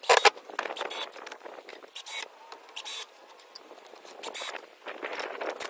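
Cordless drill driving screws into wooden boards in a series of short bursts, the loudest right at the start.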